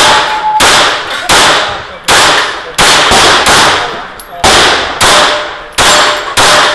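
Sig P226 9mm pistol firing a steady string of about nine shots, roughly one every 0.7 s. Struck steel targets ring after some of the hits.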